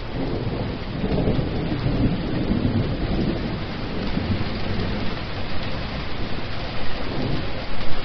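Heavy rain pouring onto a hard wet surface, with a low rolling rumble of thunder that swells in the first few seconds.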